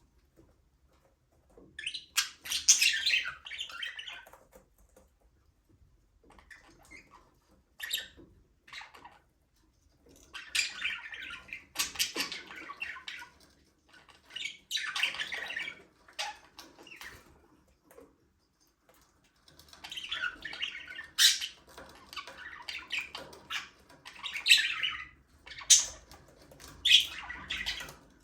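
Budgerigars chirping and chattering in irregular bursts of a second or two, with short pauses between them.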